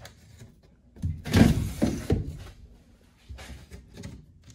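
Sliding window in a lightweight aluminium frame pushed along its track: a scraping slide with knocks about a second in, then quieter sliding near the end.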